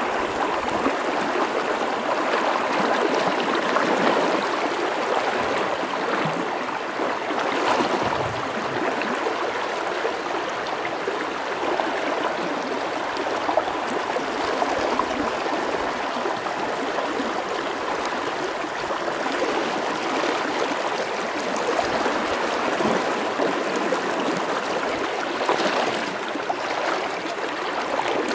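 Shallow river running fast over a rocky riffle: a steady rushing and burbling of water.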